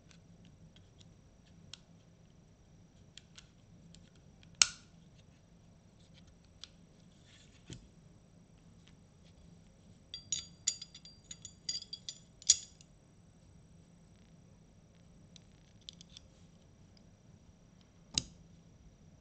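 Small metal and polymer clicks and clacks of Sig Sauer P320 pistol parts being handled and fitted as the fire control unit goes back into the grip module, with one sharp clack about four and a half seconds in, a quick run of clicks a little after the middle, and another sharp clack near the end.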